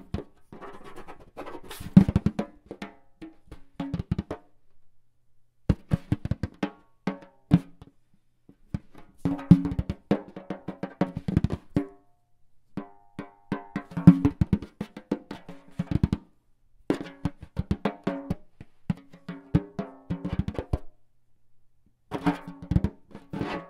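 Percussion music: quick clusters of drum hits with a low pitched ring, broken by several short pauses.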